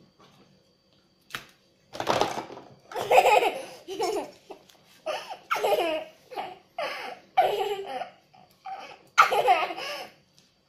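A young girl laughing hard in a series of repeated bursts, beginning about two seconds in, with a short click just before.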